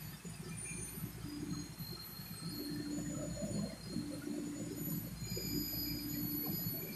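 Schutte 305 Linear CNC tool and cutter grinder running in its enclosure: a low mechanical rumble with a steady hum that cuts in and out about every second and a half, plus faint thin high tones.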